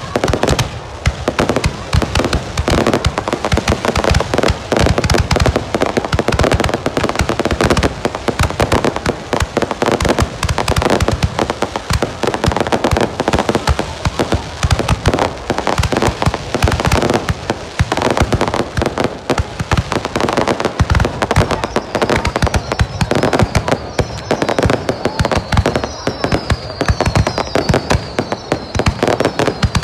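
Fireworks display fired at close range: a dense, continuous barrage of rapid bangs and crackles from launching and bursting shells. In the last third, high falling whistles repeat over the bangs.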